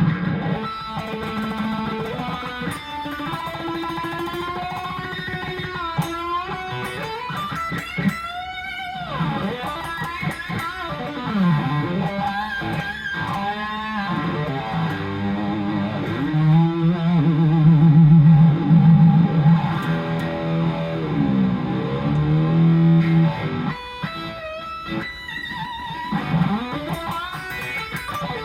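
Electric guitar played on its bridge pickup through a 40-watt tube combo amp, an EVH Wolfgang Standard into an EVH 5150. It plays sustained lead lines with wide wavering vibrato and several swooping dips in pitch that fall and come back up.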